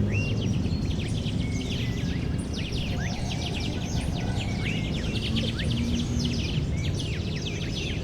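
Park ambience: a chorus of many small birds chirping and twittering in quick short notes, over a steady low rumble of distant city noise.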